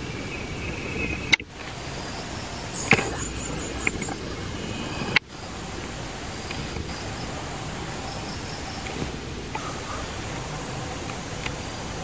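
Steady outdoor forest ambience, a constant hiss, with a short run of high chirps about three seconds in and two sharp clicks, about a second and a half and five seconds in.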